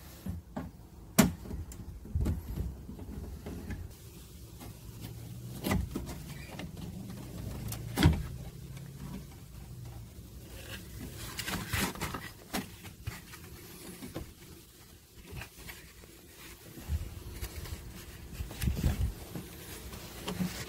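A car door speaker being unscrewed and pulled out of the door panel. A screwdriver and the metal speaker frame give scattered sharp clicks and knocks against the door, the loudest about eight seconds in, with rustling and low thumps as the speaker and its wiring plug are handled.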